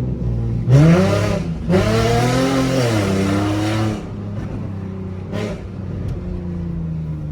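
Car engine idling, then revved hard: a sharp rise about a second in, a longer high-rev pull that falls back to idle around four seconds, and a short blip near the end before settling back to idle.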